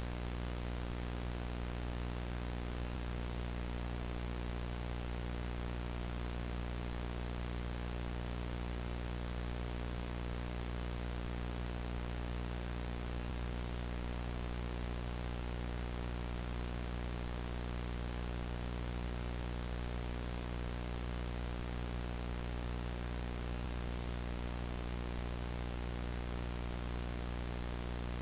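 VHS tape static: a steady, unbroken hiss with a low buzzing hum underneath.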